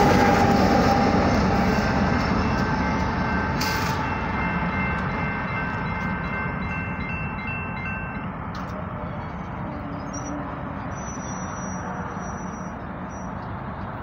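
The tail of a BNSF coal train rolling past a grade crossing, its rumble fading away over the first eight seconds, with a faint crossing warning bell dinging.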